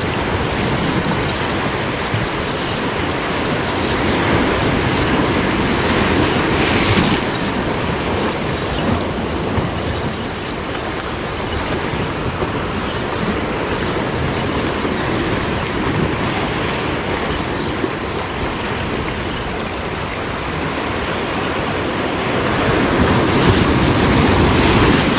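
Sea surf breaking and washing over rocks close by, a loud steady rush that swells about five seconds in and again near the end.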